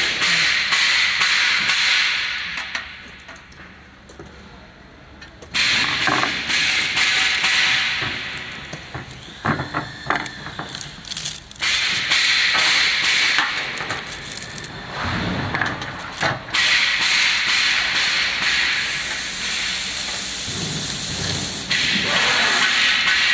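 Plastic wrapping crinkling and rustling in bursts as a bagged door handle and its small fittings are handled and unwrapped, with small clicks and knocks of a screwdriver against the metal parts.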